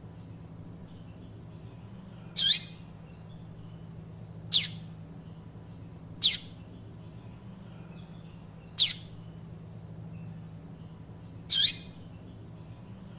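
Papa-capim (yellow-bellied seedeater) giving five short, sharp downslurred notes, spaced two to three seconds apart.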